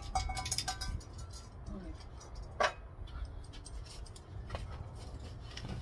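Empty tin can being handled: a few light metallic clinks in the first second, then one sharp knock about two and a half seconds in as it is set down on a wooden stand, and a fainter tap a couple of seconds later.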